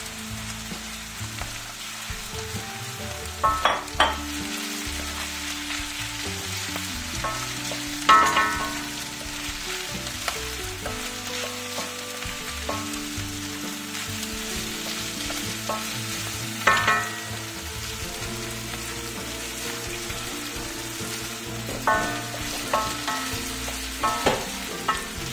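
Beef and chopped onion sizzling in a granite-coated sac pan over high heat while being stirred and sautéed with a wooden spatula, which knocks and scrapes against the pan several times.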